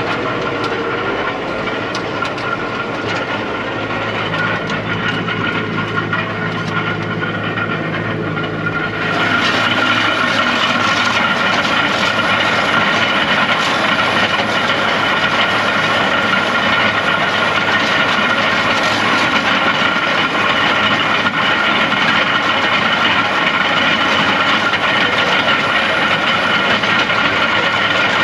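Fendt tractor pulling a Güttler Greenmaster tine harrow and seeder across grassland: the engine runs steadily under load while the harrow tines rattle over the turf. About nine seconds in the sound turns louder and brighter, with a steady high whine over a dense clatter from the implement close by.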